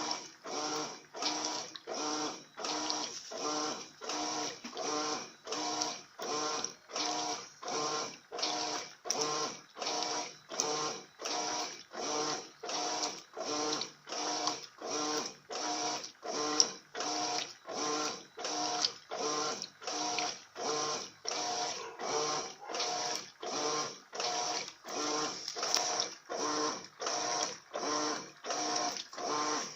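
Electrolux LF80 top-loading washing machine agitating a full tub of sheets in high-level water: the agitator swishes back and forth in even strokes, about three every two seconds, starting suddenly at the beginning.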